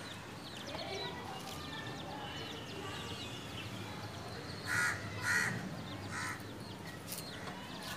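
Birds chirping steadily, with three loud, harsh calls in quick succession a little past halfway.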